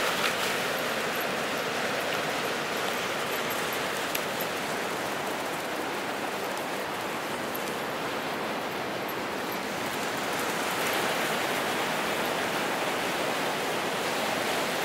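Ocean surf washing in on the shore, a steady rushing noise.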